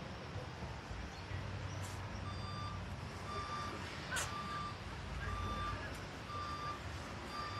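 A vehicle's reversing alarm beeping about once a second, steady short beeps that start about two seconds in, over a constant low rumble. There is one sharp tap near the middle.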